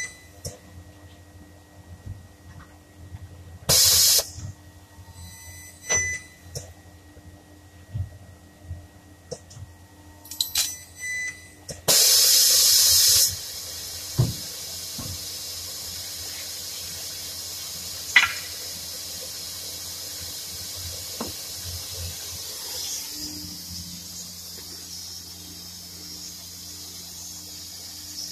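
Resistance spot welder gun firing a series of welds on a car's replacement rear body panel: several short, loud bursts, the longest about a second near the middle. A steady hiss with a few sharp clicks follows.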